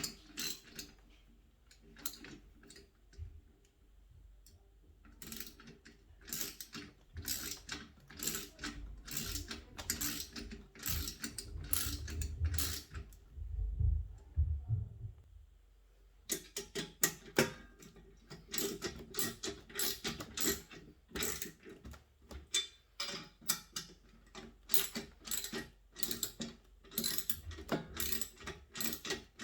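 Ratchet wrench clicking in quick runs as the bolts on the chicken plucker's legs are tightened down, with short pauses between runs. A low rumble comes in around the middle.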